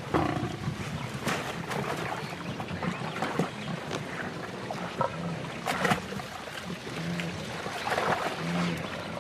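Water splashing and churning as a lioness and a wildebeest struggle in a shallow, muddy creek, with several short low animal calls in the second half.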